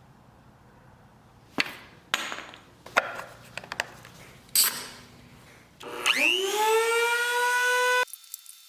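Several sharp knocks of wood and tools being handled, then a Dremel rotary tool switched on: a whine that rises in pitch as it spins up and settles into a steady high tone, then stops abruptly.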